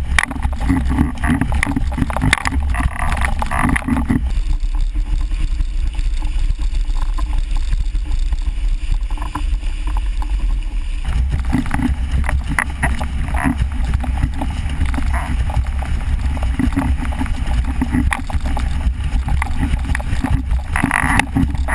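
Wind buffeting the microphone of a boom-mounted action camera, over the rush and hiss of water and spray off a formula windsurf board planing at speed. The spray hiss thins out from about four seconds in until about eleven seconds, while the low wind rumble keeps going.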